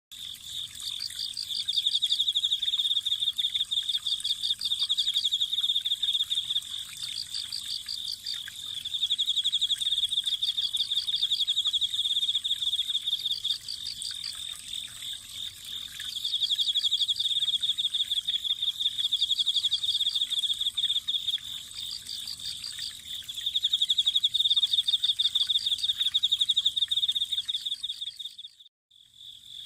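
Autumn crickets chirping: a loud continuous trill that swells and fades in phrases of a few seconds, with a second, higher insect repeating short trills about every two and a half seconds. The sound drops out briefly near the end.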